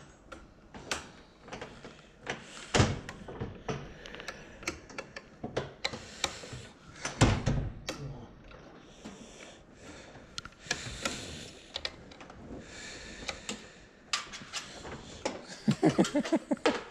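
Irregular knocks and clicks echoing in a large hall, with two louder thumps about three and seven seconds in and a quick run of rattling knocks near the end.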